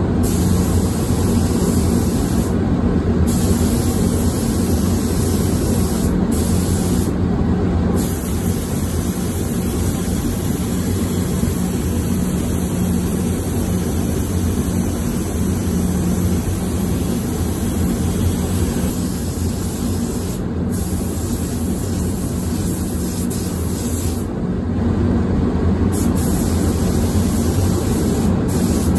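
Mini jet spray gun hissing as it sprays the ground coat of a tri-stage pearl paint job, the hiss cutting off briefly several times between passes. Underneath runs the steady hum and air rush of the paint booth's ventilation.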